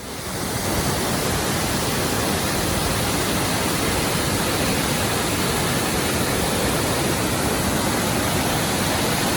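Waterfall rushing: a loud, steady roar of falling water that fades in over the first half second.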